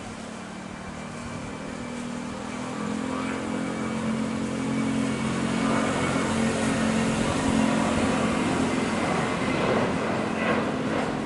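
Boeing 737 airliner's twin jet engines at climb power just after takeoff: a steady roar with a low drone, growing louder as the aircraft climbs nearer.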